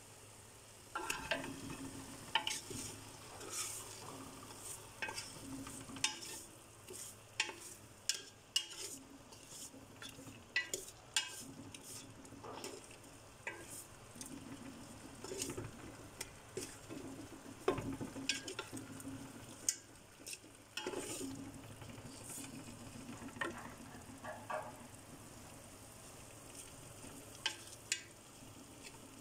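Wooden spoon knocking and scraping against an aluminium pot, in irregular strokes, as chicken pieces are stirred in frying onions and spices, over a low sizzle.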